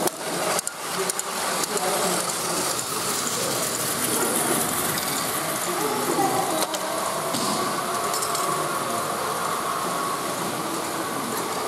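Battery-powered Plarail toy trains running on plastic track, a steady mechanical hum and rattle, with faint voices of people in the hall behind.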